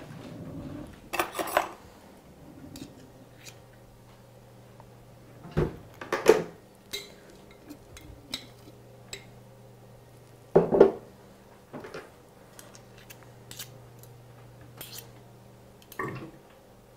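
A utensil knocking and scraping against a frying pan every few seconds, moving a lump of solid coconut oil around as it melts, with light clicks in between and a low steady hum underneath.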